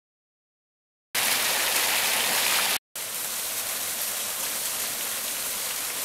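Small garden waterfall: water splashing and running over rocks as a steady hiss. It starts suddenly about a second in, breaks off for an instant near the middle, then resumes a little quieter.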